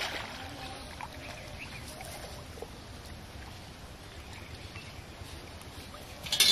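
Water splashing and streaming off a round lift net as it is hauled up out of a pond, fading into a steady outdoor background. About six seconds in, a quick cluster of sharp knocks and clatters.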